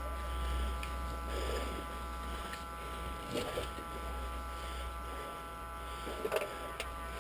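A steady low electrical hum with soft rustling and a few faint knocks over it.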